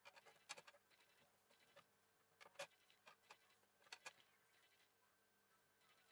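Near silence, with a few faint small clicks and taps as fingers handle a phone's frame and adhesive strips. The clicks come around the start, about half a second in, about two and a half seconds in and around four seconds in.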